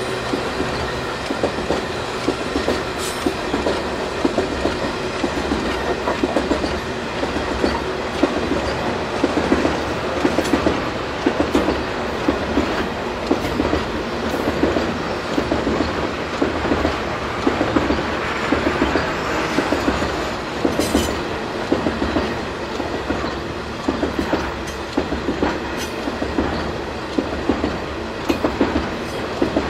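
Loaded covered hopper cars of a potash freight train rolling past close by: a steady rumble and rattle of the cars, with the wheels clicking in quick groups over and over.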